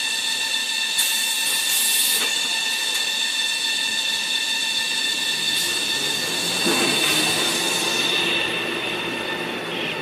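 Automatic toilet-tissue roll production line running: a steady mechanical hum and noise with several high whining tones held throughout, and two short hissing bursts about one and two seconds in.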